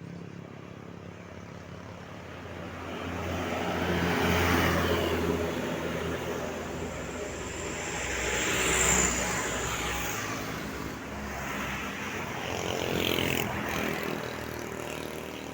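Heavy vehicles, likely tour buses, driving past on a road: a low engine rumble with three swells of engine and tyre noise as they pass, about 4, 9 and 13 seconds in, with a brief high whine at the loudest pass.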